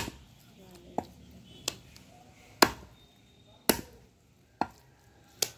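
Heavy butcher's chopper striking goat meat on a wooden log chopping block. There are about seven single chops, roughly a second apart, and the loudest come near the middle.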